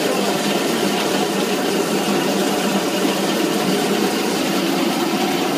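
Motor-driven grape crusher running steadily, with a constant hum under the grinding and spattering of crushed grapes and juice falling into the vat.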